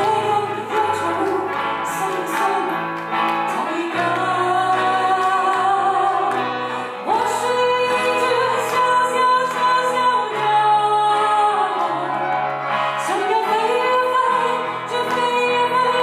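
A woman singing a ballad into a microphone, accompanied by a strummed acoustic guitar, with several long held notes.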